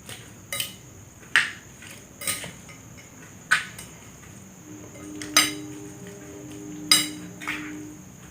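A metal utensil clinking against the dish while instant fried noodles are stirred together with their seasoning, about seven sharp knocks at uneven intervals.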